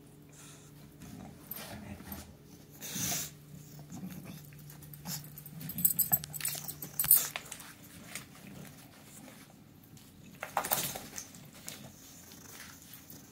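English bulldog mouthing an orange rubber chew toy, making a run of short, sharp, noisy sounds. They are loudest about six to seven seconds in, with another cluster just before eleven seconds.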